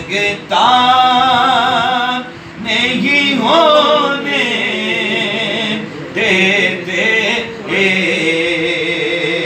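A man's voice singing a naat unaccompanied, in long drawn-out phrases with wavering pitch, broken by short pauses.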